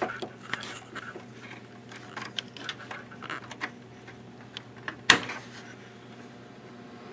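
Hands handling cables and plastic parts inside a desktop computer case: scattered small clicks and rustles, with one sharp click about five seconds in.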